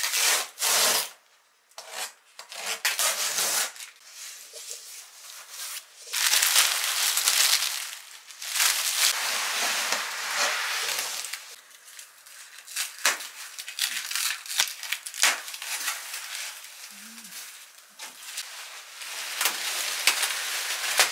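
Packing tape being slit and ripped off a large cardboard box, followed by cardboard and packing wrap scraping, rubbing and crinkling in a series of irregular bursts as the box is pulled off a wooden chest of drawers, with a few sharp knocks.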